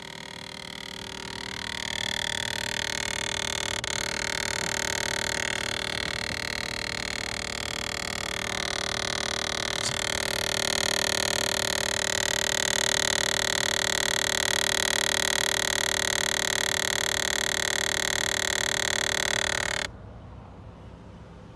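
Buzzing rattle (biri-biri) from behind the dashboard of an ACU30 Toyota Harrier, coming from the air-conditioning vent mode-switching servo motor. It builds over the first couple of seconds, holds steady, and cuts off suddenly near the end.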